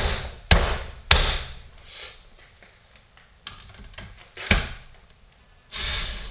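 Sharp blows on the top half of a chainsaw crankcase, knocking it down onto the heated lower half to seat it over the crankshaft bearings: three hard knocks about half a second apart at the start, a softer one, then another hard knock about halfway. Near the end comes a short whir of a cordless driver.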